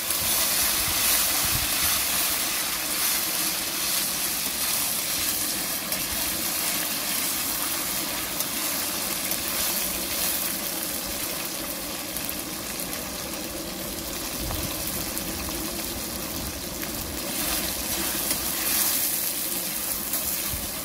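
Diced chicken deep-frying in hot oil in a wok, sizzling steadily as it is stirred with a metal skimmer, over the steady noise of a 100,000 BTU gas wok burner running at full flame.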